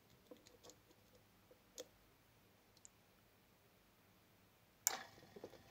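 Faint small clicks from handling a 9-volt battery clip and jumper wires, with a sharper click shortly before the end followed by a few small ticks.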